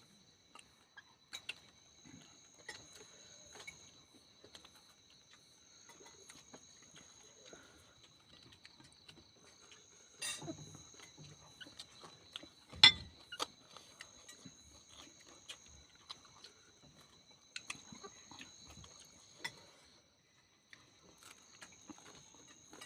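Chewing and mouth sounds of a person eating boiled papaya leaves and bitter gourd: scattered soft smacks and small clicks, with one sharper click about 13 seconds in.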